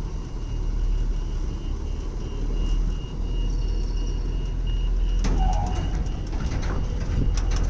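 Heavy truck diesel engine running with a steady low rumble, with a faint high beep repeating about twice a second and a few short knocks near the end.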